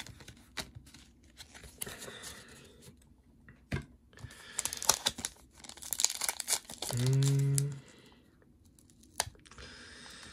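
Crinkling and tearing of plastic and foil packaging: a Pokémon card being slipped into a plastic sleeve and a foil booster pack being handled and torn open, with sharp crackles thickest about five to six seconds in. A short hum about seven seconds in.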